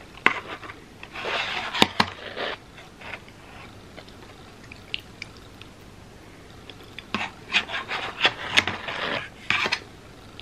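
Metal fork scraping and clicking against a plastic takeout clamshell while scooping up cake crumbs, in two spells of a second or two each with a quieter stretch between.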